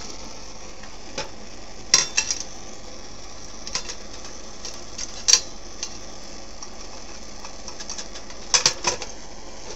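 Lit Primus No.71 stove burner hissing steadily, with a few sharp metallic clinks and knocks as the sheet-metal stove case is handled. The loudest of these come about two seconds in, about five seconds in, and a pair near nine seconds.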